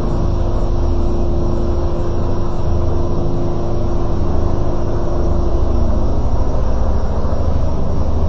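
A loud, steady low rumble with a droning hum on top that fades out about six seconds in, the kind of sound passed around as a mysterious sound from the sky.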